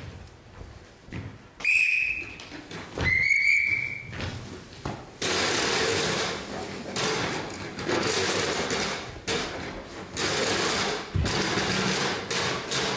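Two short, high whistle blasts, the second rising slightly in pitch. From about five seconds in, a loud, dense rattling noise takes over and runs on with brief dips.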